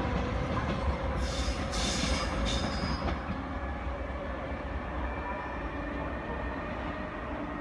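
Regional train with a Trenitalia E.464 electric locomotive pulling away, a steady rumble and hum that fades slightly as it recedes. Three short high hissing sounds come between one and three seconds in.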